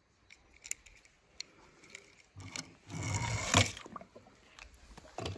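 Scattered small clicks of handling, then about a second and a half of water sloshing and squishing in a plastic tub of water crowded with pom-poms and foam balls, starting about two and a half seconds in.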